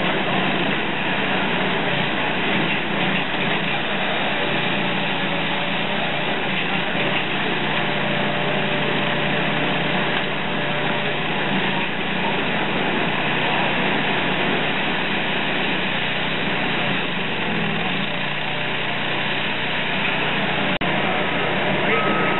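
Multitek firewood processor running steadily, its engine and hydraulics working, with a faint whine for several seconds partway through. Near the end a reversing beeper starts sounding in short repeated beeps.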